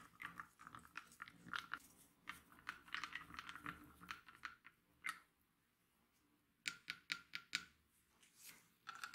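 A wooden stir stick clinking and scraping against the inside of a glass jar as salt is stirred into water, mixing an electrolyte. Quick irregular clicks run for about five seconds, stop for over a second, then come back in a short run and again near the end.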